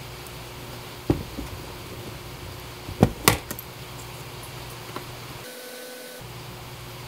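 3D-printed plastic chassis parts being handled and fitted, with a few sharp plastic clicks and knocks: one about a second in and the loudest two close together about three seconds in. A steady low hum runs underneath.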